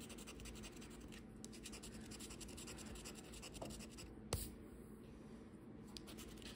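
Faint scratching of the coating off a Loteria scratch-off lottery ticket: a quick, continuous run of short scraping strokes. One sharp tap stands out about four seconds in.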